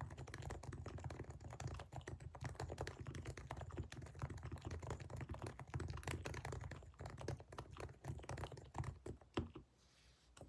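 Fast typing on a Realforce R3 Topre keyboard with 45 g electro-capacitive switches, fully lubed: a rapid run of keystrokes that thins out and stops about a second before the end.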